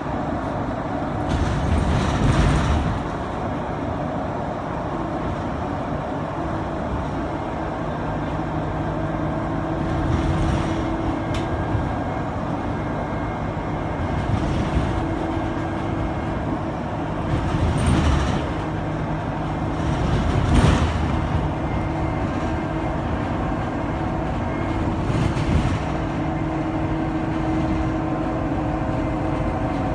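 Inside a moving city transit bus: a steady engine and drivetrain hum under constant road noise, with several brief louder surges of noise every few seconds.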